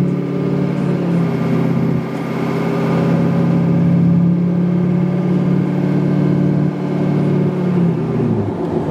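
A 2004 Duramax LLY 6.6-litre turbodiesel V8 with a 5-inch exhaust, running hard under acceleration, heard from inside the cab with a faint turbo whistle. The engine note dips briefly twice, and its pitch falls away near the end.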